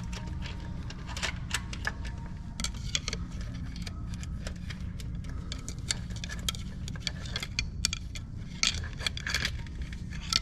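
Irregular light metallic clicks and rattles as a timing chain is worked by hand onto a crank hub with small tools, with a cluster of louder clicks near the end, over a steady low hum.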